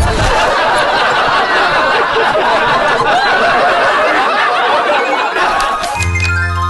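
A thump, then canned laughter from many people laughing at once, which cuts off about six seconds in as music starts.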